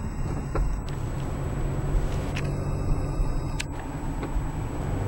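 Steady low rumble of a car's engine and road noise, heard from inside the cabin of the moving car.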